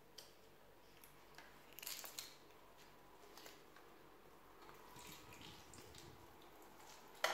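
Faint crinkling and clicks as a juice carton with a straw is handled about two seconds in, then a thin stream of orange juice squeezed through the straw trickles onto popcorn in a toilet bowl from about five seconds. A sharp click near the end is the loudest sound.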